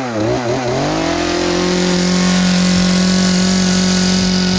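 Two-stroke chainsaw revving: a few quick blips of the throttle, then held at a steady high pitch for about three seconds, falling back toward idle at the very end.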